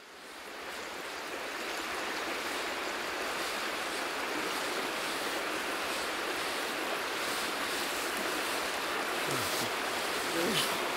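Steady rushing of a shallow river running over stones, fading in over the first couple of seconds.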